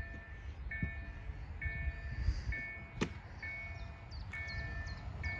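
Railway level-crossing warning signal ringing, a repeated electronic bell-like tone about once a second, sounding as a train approaches. Low wind rumble runs underneath.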